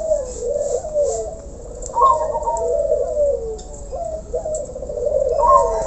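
Several caged doves cooing without pause, their phrases overlapping, with higher notes breaking in about two seconds in and again near the end.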